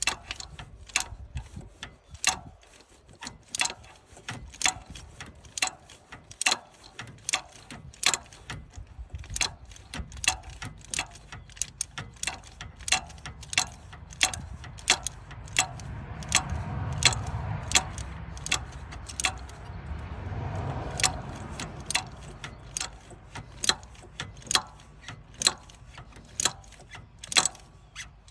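Ratchet wrench clicking in short, irregular strokes, about two clicks a second, as a spark plug is slowly tightened by hand in a cramped engine bay. A low rumble swells twice midway.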